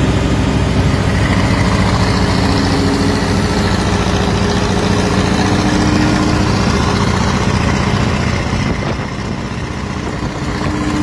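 Bentley engine of a custom Porsche 911 Targa hot rod running steadily as the car cruises along the road, heard from a car driving alongside, with road and wind noise. It gets a little quieter in the last few seconds.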